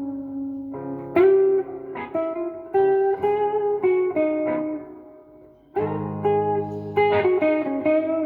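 Gibson SG Special electric guitar on its neck pickup, played through a Fender Blues Junior IV amp in a slow blues. It plays single-note lead phrases that die away to quiet a little past the middle, then a fuller phrase comes in at about six seconds.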